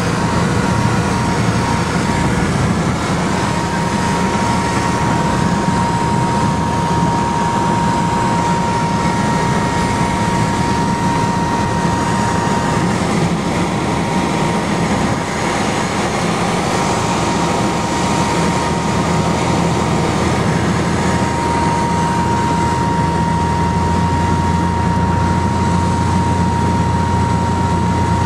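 Cessna 182RG's six-cylinder piston engine and propeller droning steadily in cruise, heard inside the cabin. A thin high whine fades in and out over the drone.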